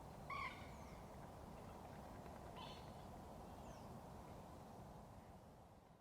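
A bird giving a short, clear call about a third of a second in and a fainter one a couple of seconds later, over a steady low outdoor background hum.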